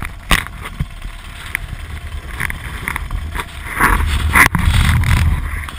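Motorcycle engine running at idle, a steady low rumble, with several sharp knocks and bumps and some wind on the microphone.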